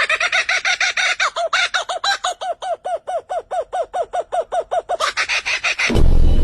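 A bird calling in a rapid series of short, repeated arched notes, about five a second. A loud burst of music cuts in near the end.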